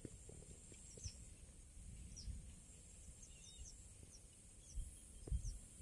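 Faint field ambience: a steady high insect drone with a string of short, high, falling bird chirps about once a second. Low rumble underneath, with a couple of low thumps near the end.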